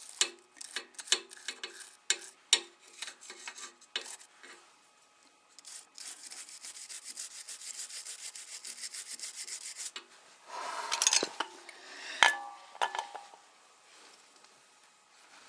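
Hand scrubbing of old RTV silicone sealant off engine metal, a scratchy rubbing sound. It starts with irregular strokes, then turns to a few seconds of fast, even back-and-forth scrubbing, and ends with a few knocks and clinks of tools or parts.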